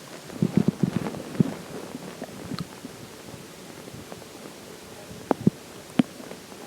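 A water-filled stomach gurgling: a quick cluster of bubbly gurgles and pops about half a second in, then three sharp single pops near the end.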